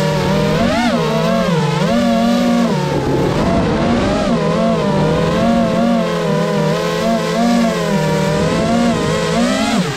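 GEPRC Mark 5 FPV quadcopter's brushless motors and propellers whining, the pitch wavering up and down with the throttle.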